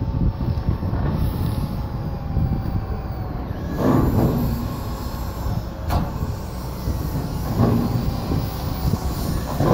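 Wind buffeting the microphone in a steady, fluctuating rumble, with a few short knocks from work on the corrugated metal roof panels, one sharp click about six seconds in.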